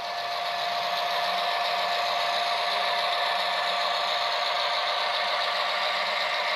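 HO scale model diesel locomotives running past on the track: a steady mechanical whir and rattle from the motors, gears and wheels, with a thin whine held at one pitch. It reaches full level about half a second in.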